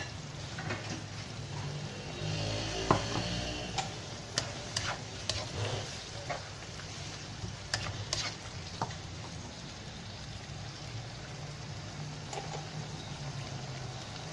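A cooking utensil stirs vegetable gravy in a non-stick wok, with repeated sharp clinks and knocks against the pan between about two and nine seconds. It is mixing in cornstarch to thicken the simmering gravy. After that only the steady bubbling of the simmer is heard.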